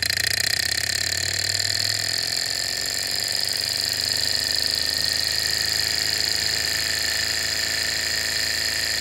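Desktop hot-air Stirling engine running at speed, its flywheel turning a small motor by a rubber belt. It makes a steady, fast mechanical whir with a high-pitched whine.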